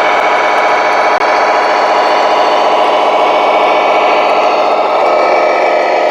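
Simulated diesel truck engine sound from the Tamiya MFC-01 sound unit in a 1/14 Tamiya Globe Liner RC truck, running steadily through the truck's small speaker as it drives, with the note shifting about five seconds in.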